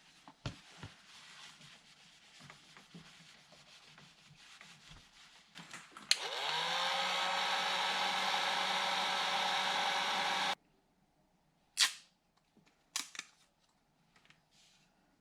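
Electric heat gun switched on with a click about six seconds in: its fan spins up with a rising whine, then blows steadily for about four and a half seconds before cutting off suddenly, warming the double-sided 3M tape under the paddle extensions. Faint handling noises come before it, and two sharp clicks follow.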